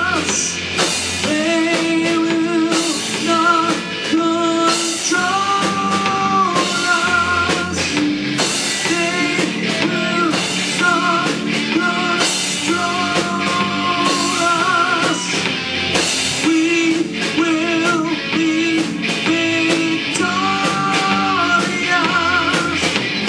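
Amateur rock band playing live without vocals: electric guitars, electric bass and a drum kit, with a lead guitar line of held, bending notes repeating every couple of seconds over steady drums and bass. The band is still learning the song.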